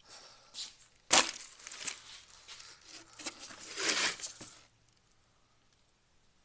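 Close handling noise: a sharp knock about a second in, then scraping and rustling that stops a little past the middle.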